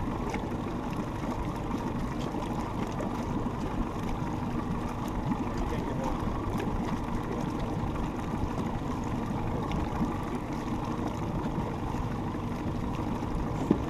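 A boat's motor idling with a steady low rumble.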